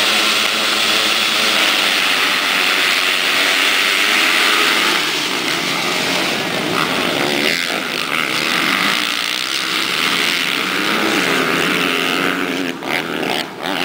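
A full field of motocross bikes at high revs, launching together from the start gate and racing off, many engines wailing at once. The noise eases somewhat after about five seconds as the pack pulls away.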